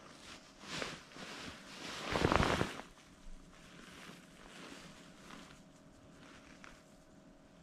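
Rustling of a winter jacket and crunching of snow as a person shifts position on snow-covered ice. The loudest scrape comes about two seconds in, and softer rustling follows.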